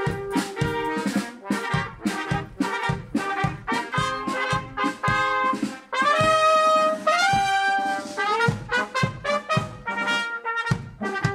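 Small wind band of trumpets, trombone, French horn and flute over a snare drum, playing an upbeat tune to a steady drum beat. Around the middle the winds hold one long note, then step up to a higher one.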